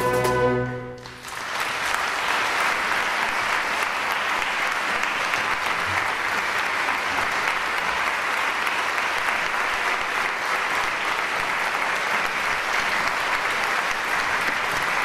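A chamber orchestra holds its final chord, which stops about a second in. Steady audience applause follows and runs on.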